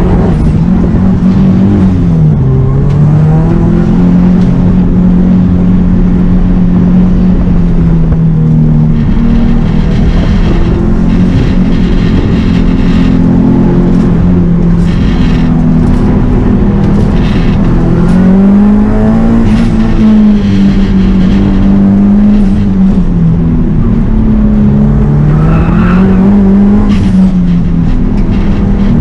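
Subaru WRX STi's turbocharged flat-four engine being driven hard on an autocross course, its pitch climbing and dropping again and again with throttle and gear changes.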